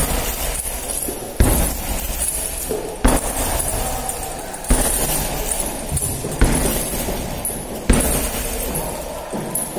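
Kicks landing on a heavy hanging punching bag: six hard thuds about one and a half seconds apart, each followed by the jingling rattle of the bag's hanging chains.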